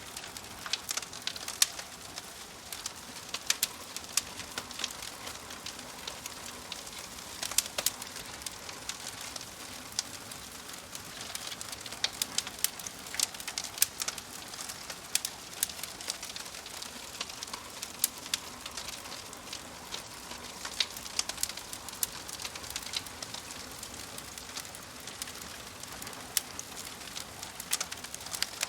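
Burning firewood crackling, with sharp, irregular pops over a steady soft hiss.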